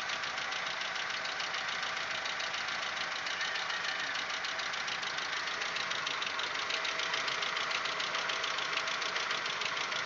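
Audi 1.8-litre 90 hp engine idling warm with a rapid, steady ticking from the top of the engine. The owner takes it for the hydraulic lifters (valve lash adjusters) knocking, a noise that only appears once the engine has warmed up.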